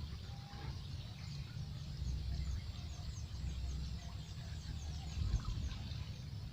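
A bird calling in a fast series of short, high, falling chirps, about five a second, over a steady low rumble, stopping about four seconds in.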